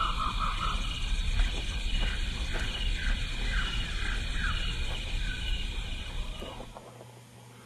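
Insects trilling steadily in a high, pulsing chorus, with a run of short, falling bird chirps. Under it is a low rumble of wind on the microphone. The sound drops away sharply about seven seconds in.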